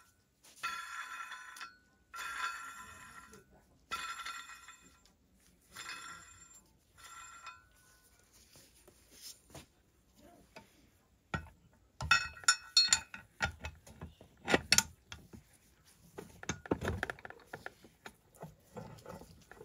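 Steel crankcase splitter tool clinking and ringing as it is handled and fitted to a chainsaw crankcase. About five ringing metal clinks come in the first eight seconds, then after a lull a quick run of sharp metal clicks and clinks, followed by softer rattling of metal parts.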